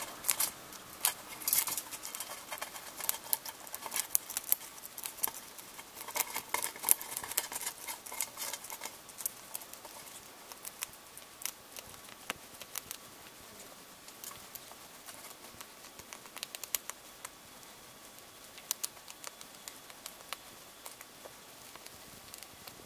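Golden hamster chewing and crunching through a flat horn hissing cockroach's hard shell: a rapid, irregular run of sharp crunches and clicks, dense for the first half and thinning out to scattered crunches later.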